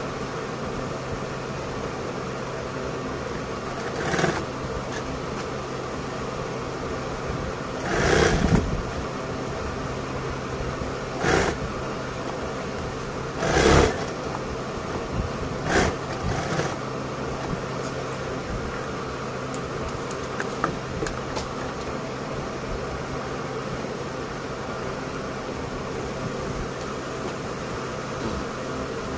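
Industrial sewing machine running with a steady motor hum, with about six short, louder bursts of half a second or so in the first half. These are stitching runs on a quilted leatherette bag.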